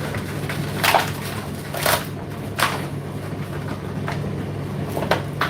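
Indesit condenser tumble dryer running with a steady low hum, with several sharp knocks and clatters over it.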